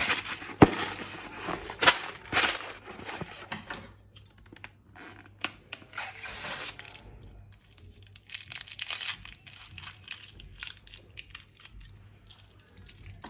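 Irregular crinkling, tearing and crackling of a slime-filled balloon being handled. A sharp click comes about half a second in, and it is loudest over the first few seconds, then fainter.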